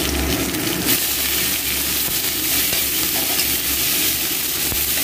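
Vegetables sizzling in hot oil in a kadai as a metal spatula stirs and scrapes them: potato, bitter gourd and red amaranth stalks being stir-fried. The sizzle is steady throughout.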